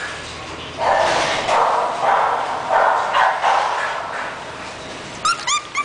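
English bulldog puppy giving a run of short barks, about six in three seconds, then three short, high whimpers near the end.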